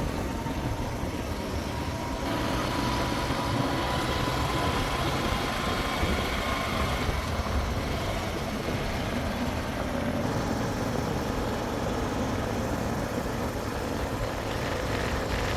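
Diesel engine of heavy farm or earthmoving machinery running steadily, with a faint thin whine over the first half.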